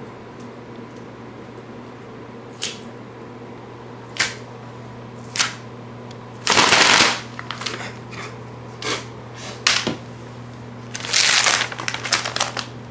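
Irregular crackling, crinkling rustles, the loudest a half-second burst about six and a half seconds in and a busier patch near the end, over a steady electrical hum.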